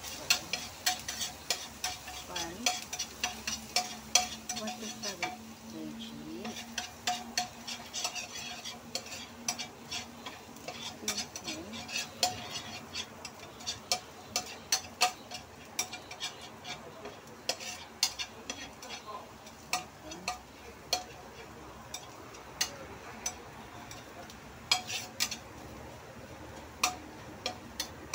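A spatula stirring and scraping minced garlic around a stainless steel wok, with frequent sharp irregular clicks of the spatula on the metal over a light sizzle of the garlic frying.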